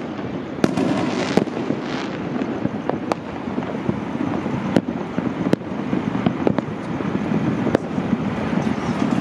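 Many distant fireworks going off across the city at once: a continuous din of overlapping bursts and crackles, with sharper, louder bangs standing out at irregular intervals of a second or two.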